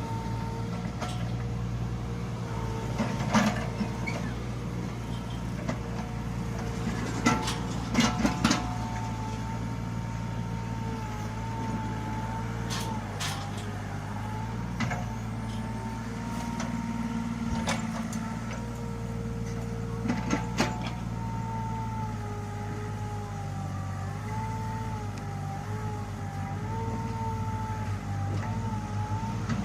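Mini excavator's diesel engine running steadily under a wavering hydraulic whine that shifts in pitch as it works. Several sharp knocks come over it, three of them close together about seven to eight seconds in.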